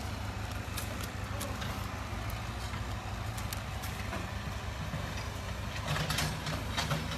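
Diesel engine of heavy earth-moving machinery running steadily while levelling ground, a low continuous rumble with scattered faint clicks and knocks.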